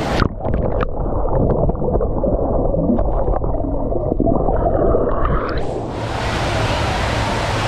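A waterproof camera's microphone plunges under water a fraction of a second in, and everything turns to a muffled underwater rush with scattered clicks and knocks. About six seconds in it comes back up into the open-air rush of the water park's splashing water.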